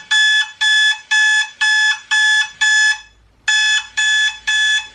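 Alarm clock beeping: a high beep about twice a second, pausing briefly a little after three seconds before it starts again.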